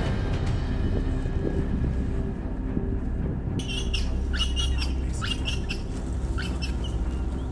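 A series of about ten short, high squawking calls in quick succession, starting about halfway through, over a low steady rumble.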